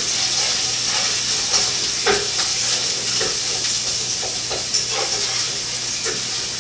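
Mashed garlic frying in hot vegetable oil in a pot on the stove: a steady sizzle with scattered small pops of the oil.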